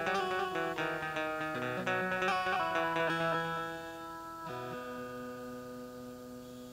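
Indian banjo, a keyed string zither, playing a quick melodic run of plucked notes. The run thins out, and a final note struck about four and a half seconds in rings on and slowly fades.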